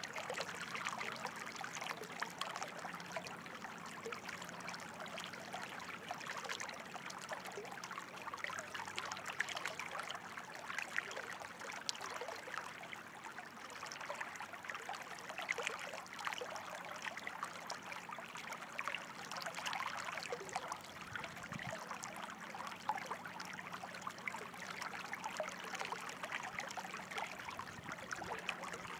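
Running water trickling steadily, with many small splashes.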